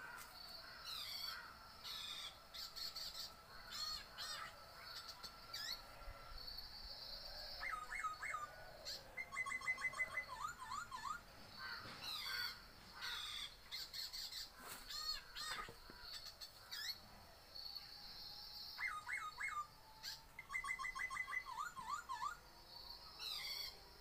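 Imitation bird calls made by a man: bouts of quick runs of short chirping notes and higher calls, repeated with short pauses between them.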